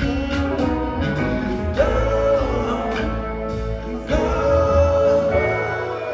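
Live rock band playing a song with singing, long held melody notes over a steady bass.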